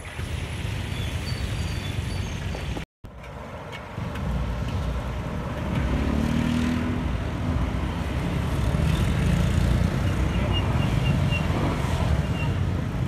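Street traffic: motorbikes and cars passing close by, a steady low rumble that cuts out for a moment about three seconds in and grows louder from about four seconds on.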